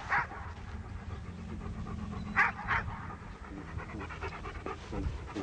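A dog panting, in short breathy puffs, with a pair of louder puffs about two and a half seconds in.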